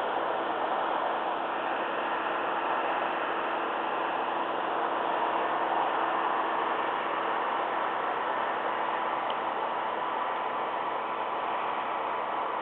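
Steady hiss of radio static from an air traffic control frequency between transmissions, cut off sharply above the narrow radio audio band.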